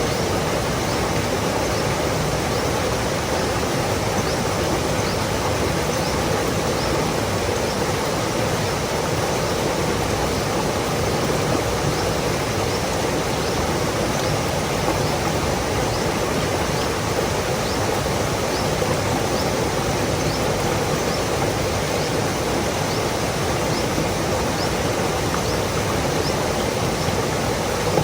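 Mountain stream flowing steadily over rocks, a continuous even rush of water.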